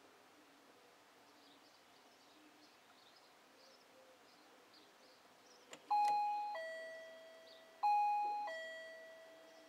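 Doorbell ringing a two-note ding-dong twice, about two seconds apart, each chime fading slowly, set off by a dog pushing the button with its nose; a faint click just before the first chime.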